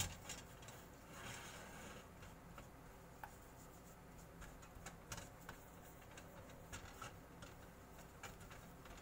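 Faint scraping and scattered light clicks of a silicone spatula stirring flour into melted butter in a small stainless steel saucepan, with a sharper click at the very start.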